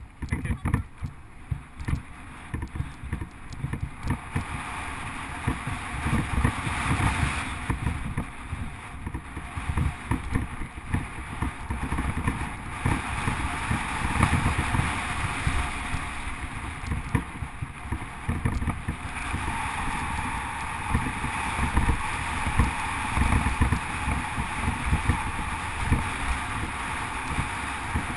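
Mountain bike riding along a rough gravel and dirt track: tyres rolling over the stones with a constant run of irregular knocks and rattles from the bumps, under a steady rush of wind and rolling noise. It gets louder after the first few seconds as the bike picks up speed.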